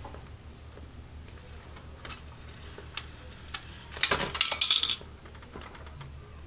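Plastic bag and paper trash crinkling and rustling for about a second as they tumble down at the rear of a Lego Technic garbage truck model, about four seconds in, with a few light clicks before it.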